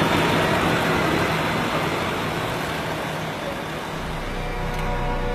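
Steady rushing cabin noise of an airliner in flight, a broad roar with a low hum that slowly eases off. Held musical tones fade in near the end.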